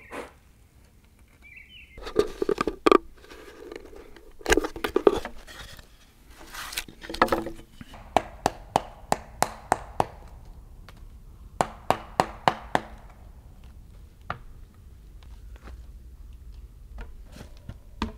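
Hand-tool woodworking on a hewn log beam: short runs of sharp wooden knocks, about two or three a second, with scraping between them.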